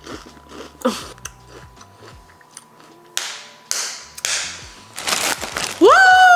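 Chewing a hot-sauce-covered Ruffles potato chip, with faint crunches, then several short huffing breaths out through the mouth, and a loud rising-then-falling "woo!" near the end.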